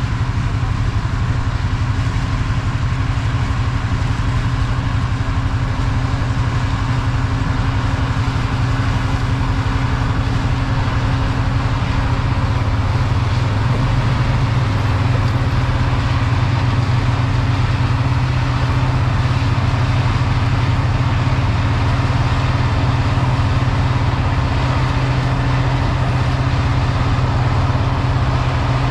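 Large farm machine's engine running steadily at a constant speed, a low even drone with no change in pitch.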